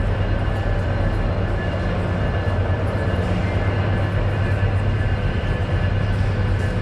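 A steady low hum with a constant hiss over it and a few faint steady tones, unchanged throughout.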